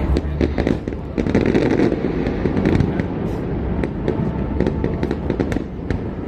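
Fireworks going off: many sharp pops and bangs at irregular intervals over a dense background rush, thickest a second or two in.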